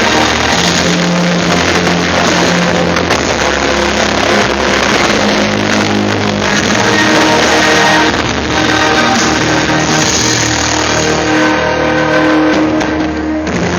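Loud music with long held notes changing every second or two: the soundtrack of a fireworks display.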